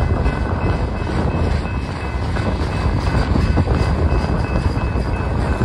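Freight train of autorack cars rolling past at a grade crossing: a steady rumble of steel wheels on the rails, with the crossing bell ringing over it.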